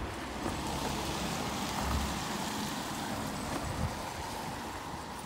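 A car driving past on a wet road, its tyres hissing, loudest about two seconds in and fading after.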